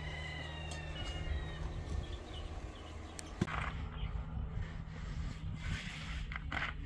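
A rooster crowing, its call trailing off about a second in, over a steady low hum. A sharp knock comes a little past the middle, followed by brief rustling.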